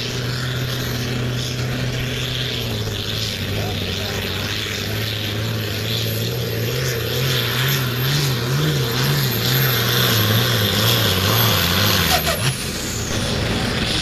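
Diesel engine of a Limited Pro Stock pulling tractor running at full load while dragging the weight sled. Its note holds steady, then wavers up and down from about six seconds in, and breaks off briefly near the end.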